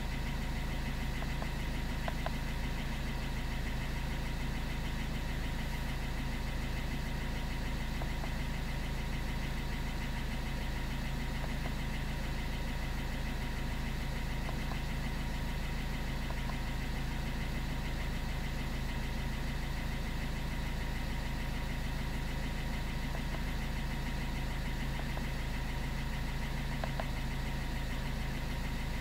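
A steady low mechanical hum with a few thin steady high tones above it and occasional faint clicks.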